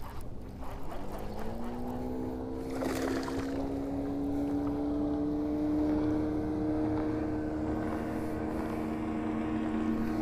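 A boat motor runs with a steady whine, rising in pitch over a couple of seconds and then holding level.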